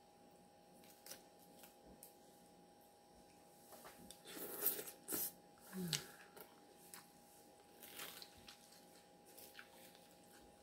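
Salad eating: scattered crunches and squishes of chewed lettuce and a plastic fork clicking and scraping in a glass bowl, busiest about four to five seconds in, with a brief hum of the voice near six seconds.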